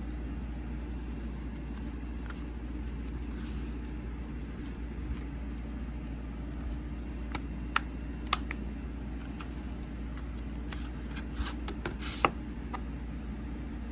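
Steady low hum with a few sharp plastic clicks and taps about halfway through and again near the end, as a Blu-ray case and its discs are handled.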